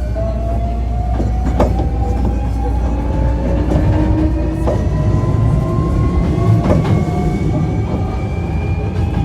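Hankyu 1300 series train's Toyo IGBT inverter motor whine, several tones rising slowly in pitch as the train gathers speed, over the rumble of wheels on rail. A few sharp clicks as the wheels cross rail joints.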